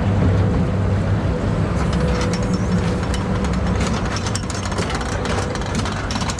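Log flume lift hill machinery running: a steady low mechanical hum with scattered clicking and clatter from about two seconds in.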